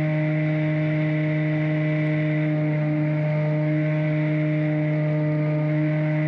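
RC bait boat's electric motors running at a steady speed, heard from on board: a constant buzzing hum at one fixed pitch.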